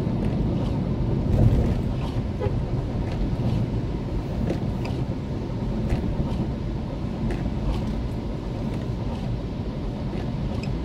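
A car driving in the rain: a steady low rumble of the car and its tyres on the wet road, with scattered light ticks of rain. There is a brief louder bump about a second and a half in.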